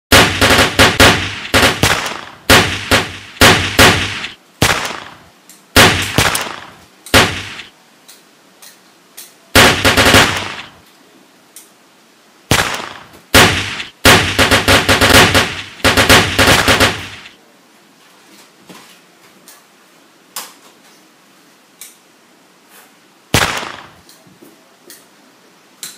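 Gunshot sound effects from a toy gun game: loud shots fired in quick strings and bursts, each with a ringing tail, for the first seventeen seconds or so. After that it goes quieter, with a few faint clicks and one more single shot near the end.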